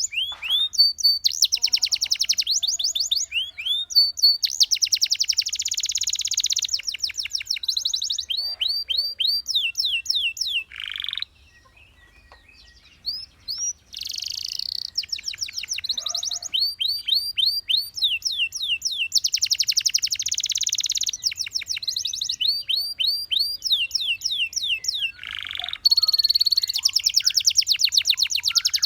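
Canary singing in rapid trills and rolls of quickly repeated high notes, with a pause of about two seconds near the middle.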